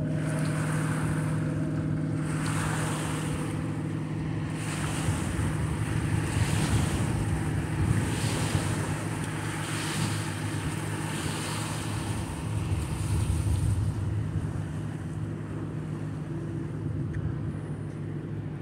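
Wind buffeting the microphone and river water lapping against a concrete edge, the noise swelling and easing every second or two, over a low steady engine hum.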